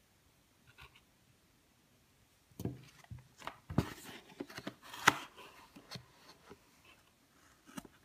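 Cardboard packaging and a cable handled with gloved hands: a run of rustles, scrapes and light knocks starting about two and a half seconds in, with the sharpest click near the middle, then tapering off.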